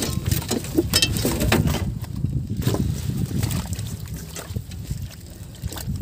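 Water splashing and sloshing close to the microphone, with a few sharp knocks and a steady low rumble. The knocks are bunched about one to two seconds in.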